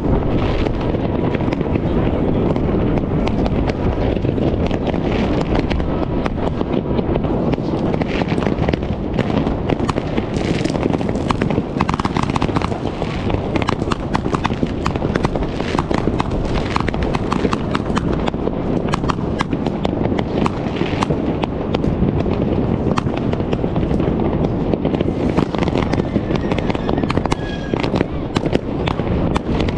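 Fireworks and firecrackers going off all around: a dense, constant run of sharp bangs and crackles over a steady rumble of further explosions.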